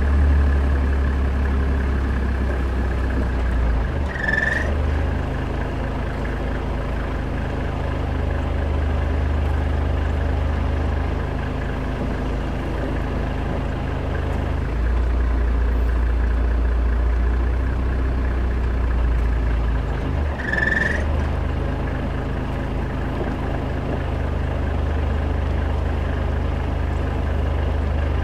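A vehicle's engine running steadily at low revs, the car creeping along in reverse; its engine note drops and changes a few times, around 4, 15 and 20 seconds in. Two short high-pitched chirps sound about 4 and 21 seconds in.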